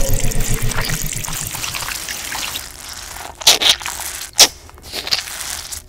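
Wet, squelching gore sound effects of flesh tearing, fading over the first couple of seconds. A few sharp wet splats follow, about three and a half, four and a half and five seconds in.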